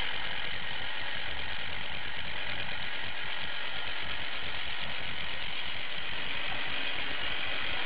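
Tempomatic BBQ rotisserie spit motor running steadily.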